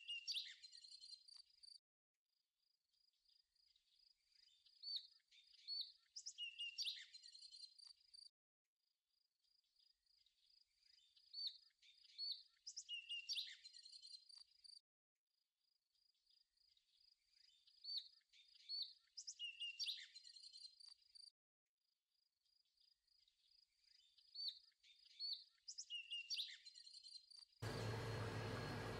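Faint looped birdsong: chirps and short whistled calls over a steady high trill, the same stretch of about six seconds repeating five times with brief silent gaps between.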